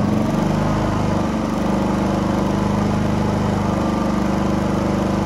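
Pulsar G450RN inverter generator's single-cylinder four-stroke engine running steadily, its speed shifting in the first second or so and then holding even. It is running with the overfilled crankcase oil drained back toward the proper level, the overfill being what the owner took for the culprit.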